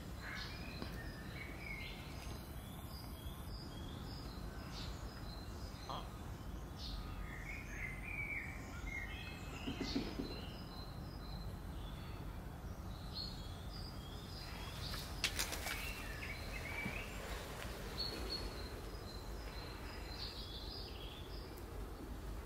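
Outdoor background rumble with small birds chirping again and again throughout. There is a brief low sound about ten seconds in and a sharp click about fifteen seconds in.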